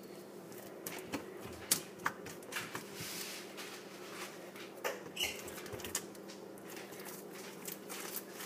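Sticky blue clear-glue slime being stretched and squished by hand, giving scattered crackles and small clicking pops, over a faint steady hum.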